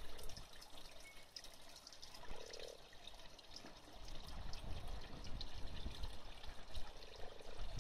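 Faint trickling and small splashes of garden pond water as mating frogs move about, with a short, low purring croak about two and a half seconds in and another near the end.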